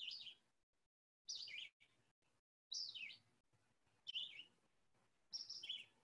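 Recorded red-eyed vireo song, played back faintly: five short slurred phrases about a second and a half apart, with pauses between them, the bird's 'see me, hear me, here I am' pattern.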